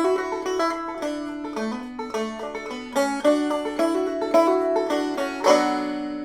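Banjo played clawhammer style, capoed at the second fret, picking a short riff of quick plucked notes between verses. The riff ends on a chord that rings out and fades near the end.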